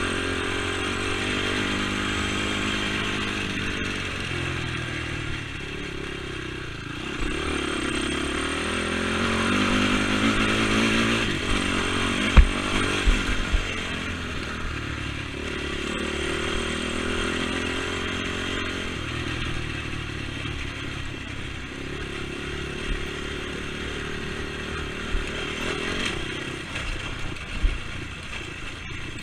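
Honda TRX450 quad's single-cylinder four-stroke engine being ridden hard: it revs up and eases off again and again, pitch rising and falling. A few sharp clattering knocks land around the middle and near the end.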